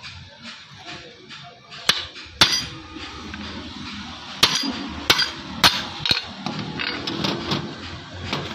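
A hammer striking a splined steel shaft used as a drift to drive a bush into the eye of a car suspension control arm held in a vise: about six sharp metallic knocks, some ringing, irregularly spaced half a second to two seconds apart, over background music.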